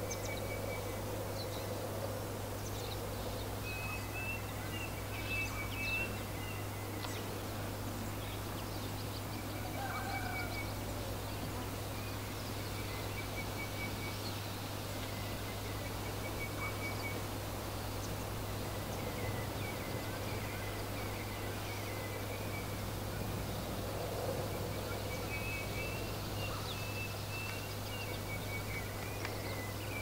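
Small birds chirping in short, rapid trills and twitters, repeated throughout, over a steady wind noise with a constant low rumble.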